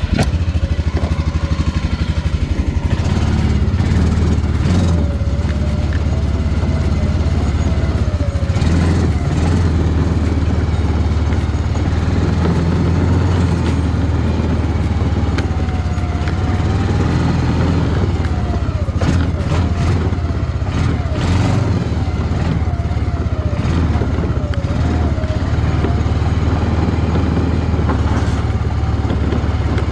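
Small gasoline engine running steadily just after starting, its pitch wavering up and down with the throttle.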